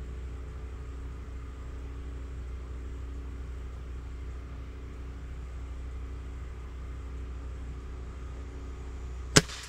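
A Gamo Swarm Whisper .22 break-barrel air rifle fires a single sharp shot about nine seconds in. Before the shot there is a steady low background hum.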